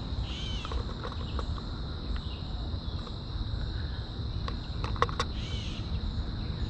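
Summer woodland ambience: a steady, high-pitched insect drone with a few bird chirps and calls, and a quick run of sharp bird chips about four to five seconds in.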